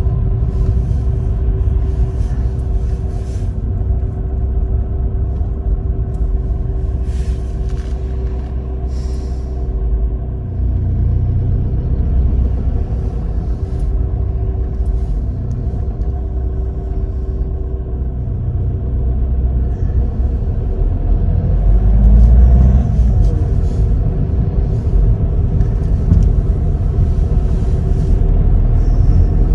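A car driving slowly through town, heard from inside the cabin: a steady low road and engine rumble that grows louder about two-thirds of the way through, with steady held tones over it.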